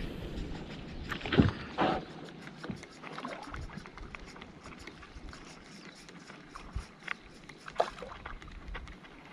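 A LureKiller Flame KS2500 spinning reel is wound in from a small wooden canoe as a walk-the-dog topwater lure is worked back. There are two knocks about a second and a half in and a couple more near the end, over light, rapid ticking and water lapping at the hull.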